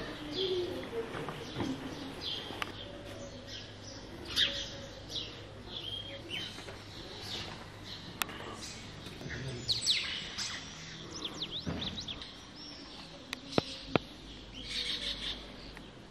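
Birds chirping and twittering, with many short high calls and a few quick sweeping notes scattered throughout, and two sharp clicks near the end.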